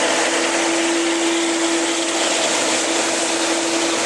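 Airbus A350-941's Rolls-Royce Trent XWB jet engines running at low taxi power: a steady rushing hiss with one constant low hum tone.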